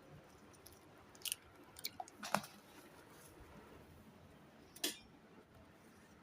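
A few short clicks and knocks, with the loudest about two seconds in and another near the end. They come from objects being handled in a kitchen.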